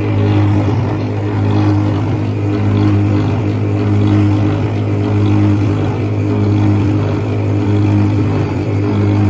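Homemade diamond faceting machine running: a steady motor hum from the spinning metal lap wheel, with the faceting head holding a diamond against the lap. The hum wavers slightly in a regular way.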